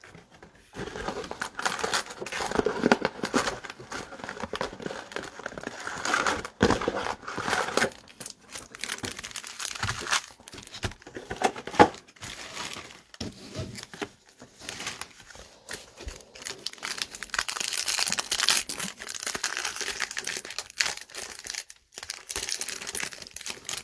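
Baseball card pack wrappers being torn open and crinkled by hand, an irregular crackling with small sharp clicks that goes on throughout.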